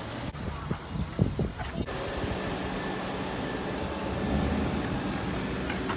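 A few sharp knocks and clatters in the first two seconds, then a vehicle engine running with a steady hum that swells slightly about four seconds in.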